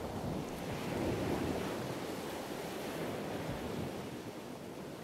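Ocean surf washing in a steady rush, swelling about a second in and easing slightly toward the end.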